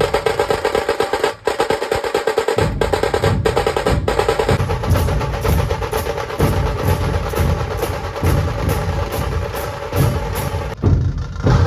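Dhol-tasha ensemble drumming: fast, continuous rolls on the tasha drums over deep dhol beats.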